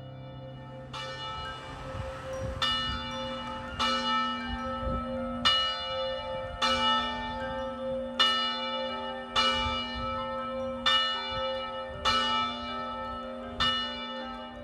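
A large, 600-pound church steeple bell ringing: about ten strokes, starting about a second in, coming in an uneven short-long rhythm, with the bell's hum carrying on between strokes.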